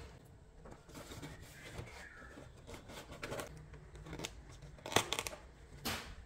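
Kraft cardboard bakery box being handled and closed: faint rustling, then two sharp cardboard clicks about a second apart near the end.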